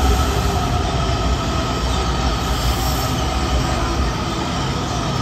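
Washington Metro subway train moving along the platform of an underground station: a steady rumble of wheels on rail with a high, thin wheel squeal held over it.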